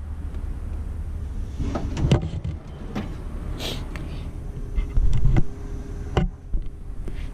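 Snap-on Epiq steel tool box drawers sliding on their runners and clacking shut, several knocks with a louder sliding stretch about five seconds in, over a low steady hum.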